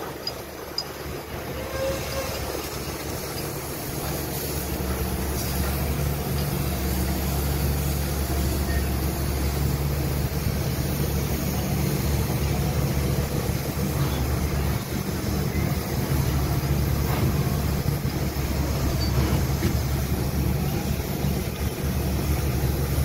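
Heavy machinery engine running steadily, a low hum that grows louder over the first few seconds and then holds.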